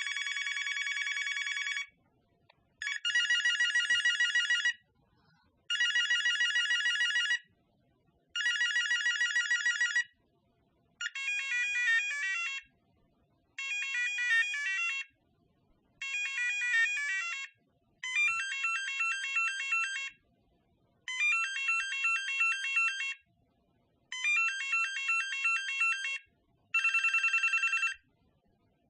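Telephone ringtones: about eleven ring bursts of roughly two seconds each, with about a second of silence between. The first few are a fast warbling trill; from about eleven seconds in they become quick melodic beeping rings, and a trill returns near the end.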